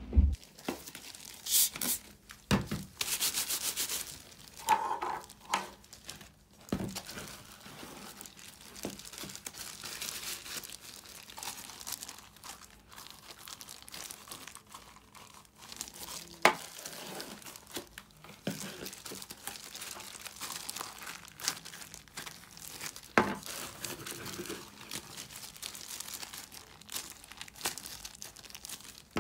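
Butter slime being torn off and pressed into small plastic containers by hands in crinkling disposable plastic gloves, a steady crackly rustle with a few sharp plastic knocks now and then.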